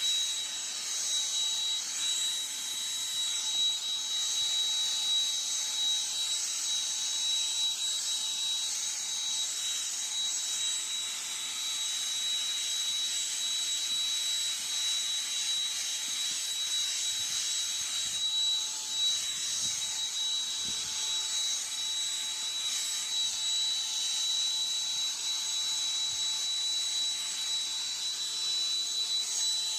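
Black & Decker 16-volt lithium cordless handheld vacuum (CHV1410L) running steadily, a high motor whine over a hissing rush of air, with brief faint knocks as it is worked over carpet.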